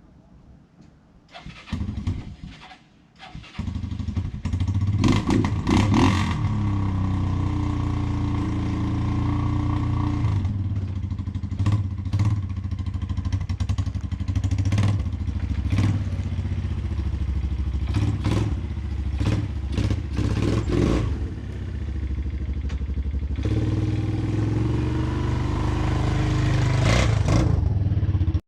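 Four-wheeler (ATV) engine being started, catching after a couple of seconds of short bursts, then running steadily with scattered brief clicks and small changes in level.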